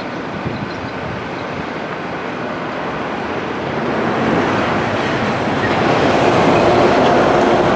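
Steady rumble of a passing vehicle, growing louder from about halfway through.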